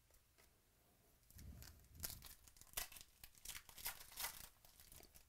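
Trading-card pack wrapper being torn open and crinkled by hand, a run of short ripping and crinkling sounds starting about a second in.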